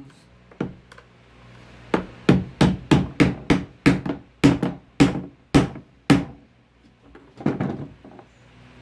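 Hammer tapping the end of a metal putty knife to drive its blade under a nail holding a brass bracket on a wooden trunk, working the nail loose: a run of about a dozen sharp taps, roughly three a second, with a few lighter taps near the end.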